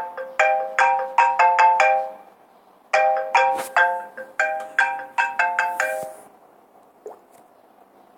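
An iPhone ringtone: a short, bright melody of quick struck notes, each sounding several pitches at once like a chime. It ends about two seconds in and, after a pause of under a second, plays again, dying away about six seconds in.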